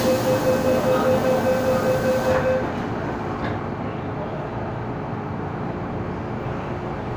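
MTR M-Train door-closing warning: a rapid steady-pitched beeping, about four beeps a second, that stops about two and a half seconds in as the doors shut with a short knock. After that, the steady running noise of the train car.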